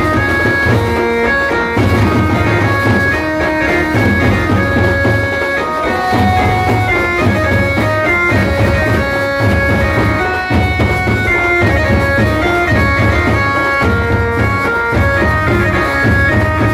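Loud music: a melody of long held, reedy notes stepping from pitch to pitch over a low pulsing drum beat.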